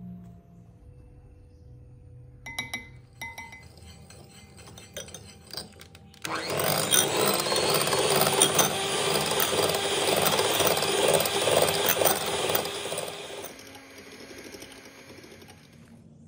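Electric hand mixer beating egg whites and sugar into meringue in a glass bowl. It starts suddenly about six seconds in and runs steadily for about seven seconds before stopping. A few light clicks come before it.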